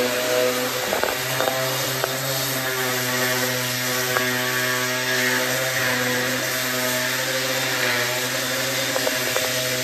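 DeWalt brushless cordless random orbital sander running steadily while sanding pine bed-frame slats and rails, a continuous motor hum with a sanding hiss. A few brief clicks come through, about a second in, near the middle and near the end.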